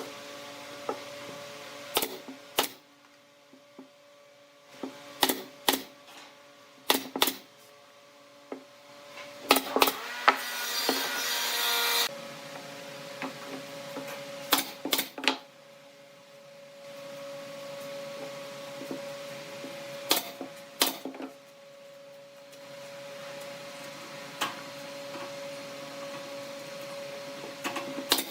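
Hand work on wood: scattered sharp knocks and taps, with a few seconds of scraping about ten seconds in, over a faint steady hum.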